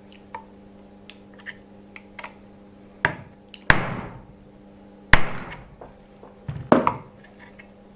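A hammer striking the end of a screwdriver held against an upgraded alloy-metal WLToys 144001 differential part: four sharp blows from about three seconds in, the middle two loudest, each ringing briefly. The blows are a strength test of the alloy part, which only scratch it.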